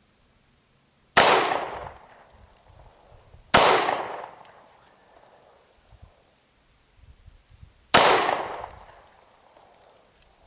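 Three shots from a Glock 26 9mm pistol during target practice, a few seconds apart, each a sharp crack with a short echoing tail.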